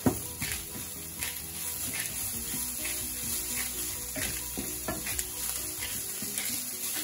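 Ground beef and onions sizzling in a nonstick frying pan, stirred and scraped with a wooden spatula in repeated strokes over a steady frying hiss.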